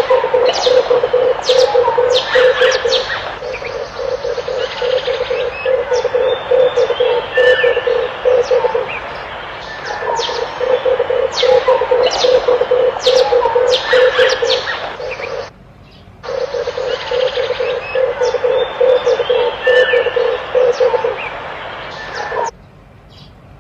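Red turtle doves giving rapid, throbbing coos in repeated bouts of several seconds each, over the short, high chirps of other small birds. The cooing cuts out briefly about fifteen seconds in and stops near the end.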